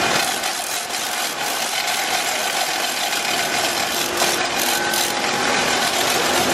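Steady noise of running plant machinery: an even hiss and hum with a few faint steady tones.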